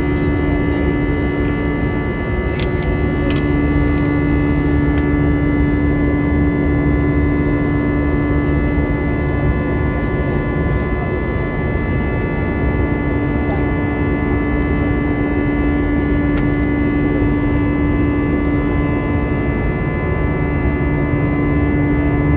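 Inside the cabin of an Airbus A320 with CFM56 engines: a steady drone of engines and airflow, with a constant hum and a steady higher whine.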